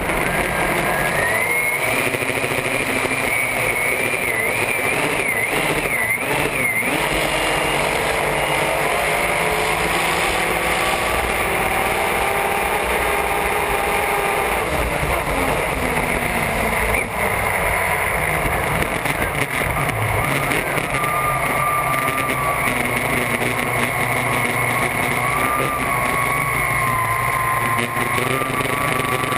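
Supercharged racing hydroplane engine running hard at speed, heard from on board over the steady rush of water and wind. A whining tone wavers in pitch, most noticeably about five to seven seconds in.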